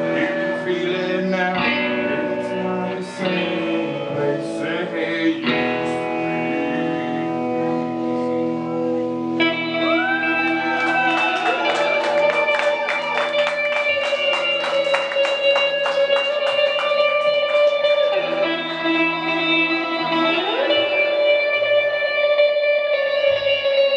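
Live punk rock band playing: distorted electric guitars over drums, with a fast, even beat driving in from about ten seconds in.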